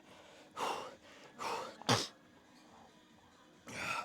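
A person's forceful breaths and coughs while straining through a heavy leg set, with four noisy bursts. The loudest is a short, sharp one about two seconds in.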